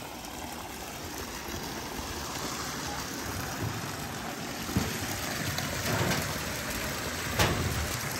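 Steady rushing water in a trout pond while a hand net is worked through it to catch fish, with two short sharp sounds about five and seven and a half seconds in.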